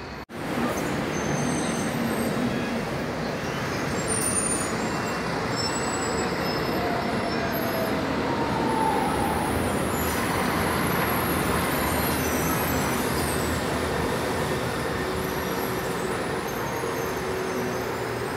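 City street traffic: buses and other vehicles running through a busy intersection, a steady din of engines and tyres.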